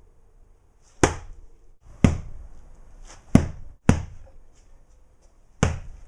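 Five sharp whacks, each a single hard crack that dies away quickly, spaced irregularly about a second apart: objects being struck as trial sound effects for a hockey-stick hit.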